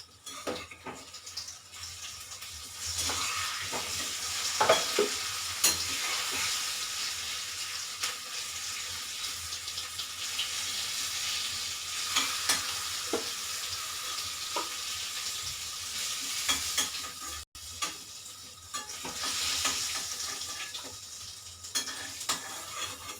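Raw-banana koftas sizzling as they deep-fry in hot oil, with short clinks and scrapes of a spoon stirring and lifting them out of the pan. The sizzle swells about three seconds in and breaks off briefly about three-quarters of the way through.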